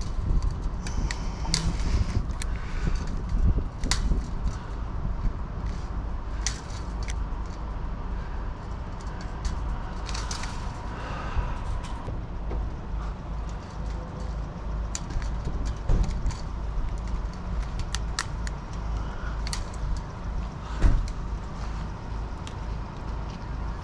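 Scattered clicks and light metallic knocks of chain-link mesh and wire being worked by hand, over a steady low rumble. The sharpest knocks come about two-thirds of the way in and near the end.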